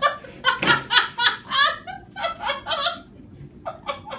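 Hearty laughter in quick, rhythmic peals, strong for about three seconds and then dying down to a few scattered bursts.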